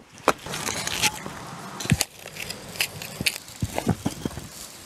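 A wooden block knocking and scraping against a natural foundation stone and the gritty mortar packed around its base, as the stone is nudged onto centre. The sharp knocks are irregular, the loudest about two seconds in, with a scrape near the start and a quick cluster of knocks near the end.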